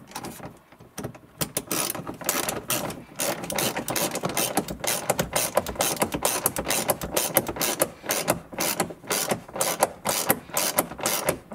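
Quarter-inch drive hand ratchet clicking in quick, uneven runs as a bolt on the rear heater assembly is tightened. The clicks are softer for the first second or two, then louder.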